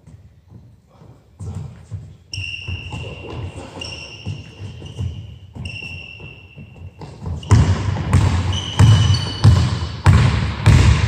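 Basketball dribbled on a hardwood gym floor with sneakers squeaking. The bounces are faint at first, then come loud at about two a second from about seven seconds in, as more squeals come.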